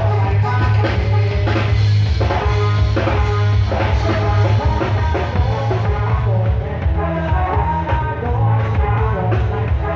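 Thai khrueang hae procession band playing loud amplified music: a heavy bass line and a steady drum beat under a melody line.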